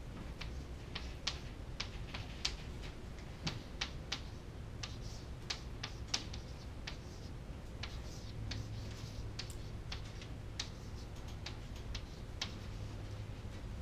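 Chalk tapping and scraping on a chalkboard as equations are written: irregular sharp clicks, about two or three a second, over a low steady room hum.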